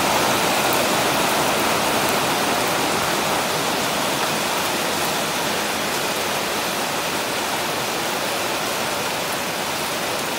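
Heavy downpour hitting a corrugated zinc roof overhead: a steady, dense rush of rain.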